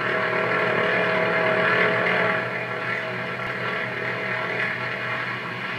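Propeller aircraft engine running steadily as a round-winged monoplane flies, through the hiss of an old film soundtrack.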